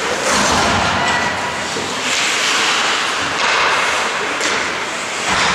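Ice skate blades scraping and carving across the rink's ice, in swells about a second long.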